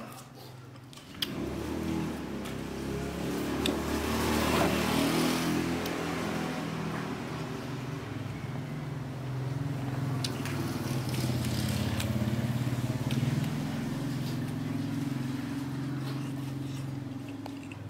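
A motor engine running, starting about a second in and going on steadily, noisiest around four to five seconds in.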